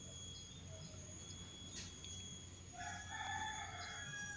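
A rooster crows once, starting about three seconds in and lasting about a second and a half, over a faint steady background hum.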